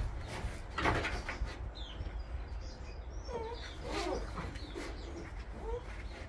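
Bernese Mountain Dog puppies whimpering: a few soft, short whines that bend up and down, after a brief rustle about a second in. Faint bird chirps sound in the background.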